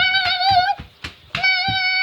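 A high voice holding a long sung note that wavers slightly, breaking off under a second in, then taking up a second, steadier held note at the same pitch. Faint low knocks keep a steady beat underneath.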